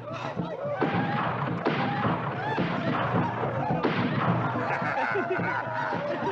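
Men's voices laughing and snickering, with a few scattered thumps.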